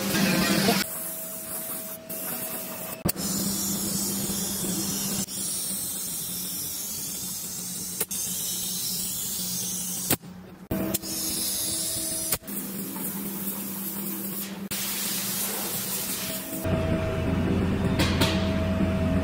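Compressed-air hissing from body-shop spray and sealant tools, in a string of short clips that cut in and out abruptly. A steady hum runs under some of the clips.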